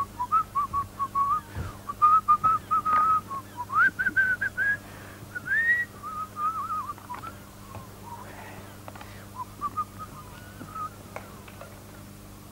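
A man whistling a tune through his lips, one clear wandering melody line. It is strongest through the first half, then grows softer and trails off near the end.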